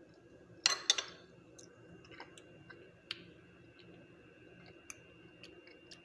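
A metal spoon clinking twice against a plate about a second in, followed by faint scattered ticks over a faint steady high tone.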